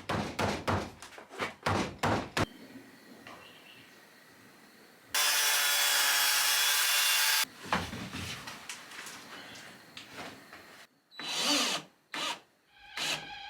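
Power tool work in quick cuts: short bursts of tool noise, with one power tool running steadily for about two seconds midway.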